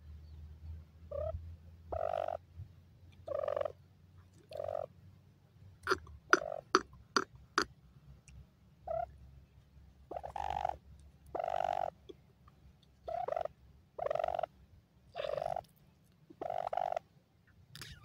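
Grey francolins calling: about a dozen short, harsh calls repeated roughly once a second, with a quick run of about five sharp clicking notes around six to seven seconds in.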